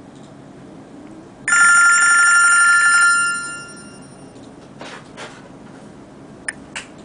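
BlackBerry phone ringing with an incoming call: one burst of its trilling ringtone about a second and a half in, lasting about a second and a half before fading. A few faint clicks follow near the end.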